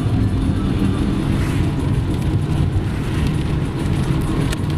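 A car driving on a wet road, heard from inside the cabin: a steady low rumble of engine and tyres, with a short click near the end.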